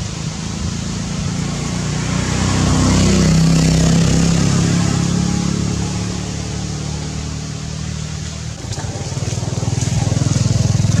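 A motor vehicle's engine running, growing louder to a peak about three to four seconds in and easing off, then a steady, fast throbbing engine sound from about nine seconds in.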